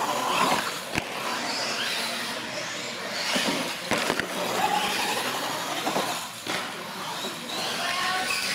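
Radio-controlled monster trucks racing on a smooth concrete floor: motors whining and tyres rolling, with sharp knocks about a second in and again around four seconds as the trucks bump over ramps or land.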